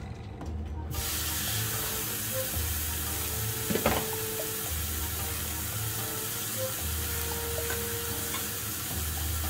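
A large slab of beef starts sizzling on a round tabletop grill plate about a second in, as it is laid down, and keeps up a steady sizzle. There is one sharp click near the middle.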